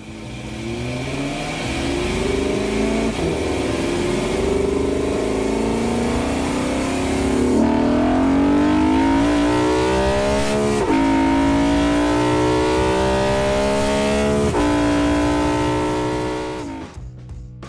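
BMW E92 M3's S65 4.0-litre V8 accelerating hard under full throttle, revs climbing through the gears with a sudden dip in pitch at each upshift, several times, before the sound fades away near the end.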